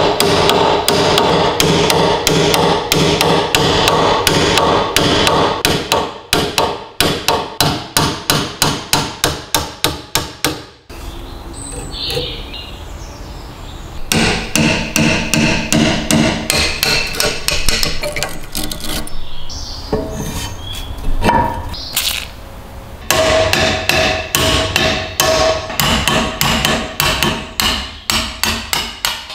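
Hammer striking a steel pin punch to drive rusted pins out of an old stapler clamped in a bench vise: fast runs of sharp metallic blows, with a short quieter pause partway through.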